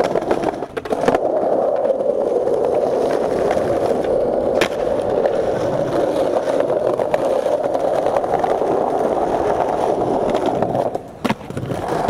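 Skateboard wheels rolling over stone and tile paving with a steady rumble. A sharp clack comes near the end, after a brief lull.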